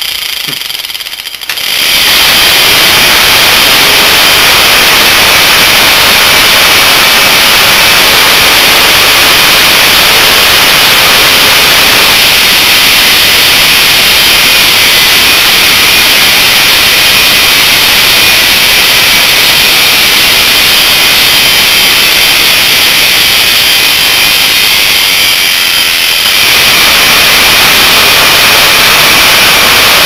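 Washing machine universal motor, fed from a microwave oven transformer, starting about two seconds in and running at full tilt with a loud, steady hissing noise. Its brushes are arcing heavily and burning up. The noise eases slightly near the end and then comes back up.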